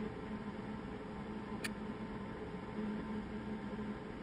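Caulking gun being squeezed to lay seam sealer along a wheel-arch seam: one sharp trigger click about one and a half seconds in, over a steady low hum.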